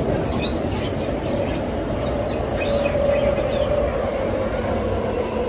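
Shanghai Metro Line 1 train running along the track, heard from inside the carriage: a steady rumble with a humming tone and a few short, high squeals in the first couple of seconds.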